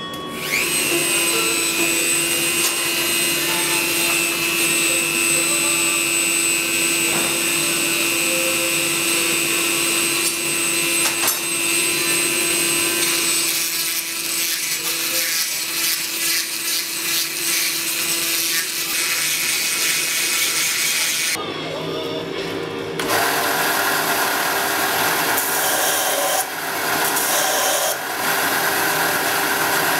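Electric grinding machines working a small metal part: one machine runs with a steady whine for most of the first twenty seconds. After a short break, a bench belt sander runs and grinds until the end.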